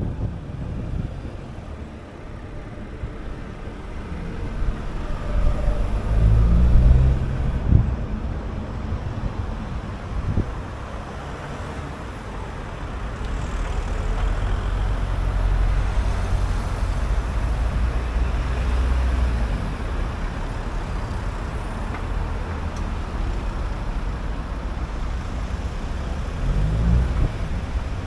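A car driving in town traffic: steady road noise with a low engine rumble that grows louder about six seconds in and again from about fourteen seconds. Two short knocks come about eight and ten seconds in.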